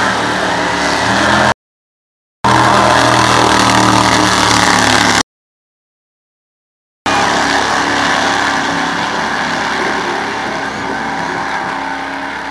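Wheelstanding drag-racing school bus making its run at full power: a loud, steady roar that eases off slightly toward the end as the bus moves away down the track. The sound cuts out to dead silence twice in the first half.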